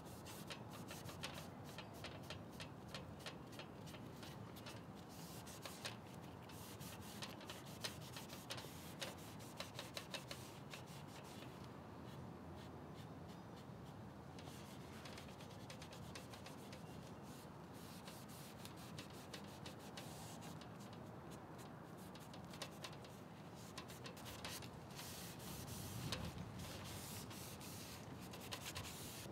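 Gel stain being rubbed into the grain of a wooden chair: faint, scratchy rubbing strokes, busy at first, sparser through the middle and picking up again near the end.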